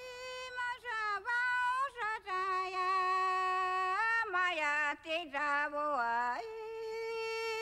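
A woman singing alone without accompaniment, in long held notes that slide down and back up between pitches. The song starts out of silence.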